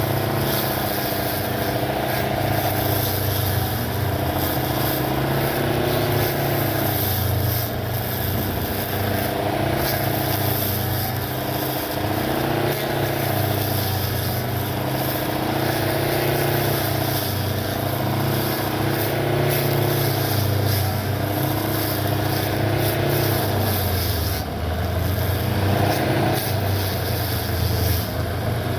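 Homemade battery-powered lawn mower's electric motor running steadily, its pitch dropping and recovering every few seconds, with a deeper dip near the end.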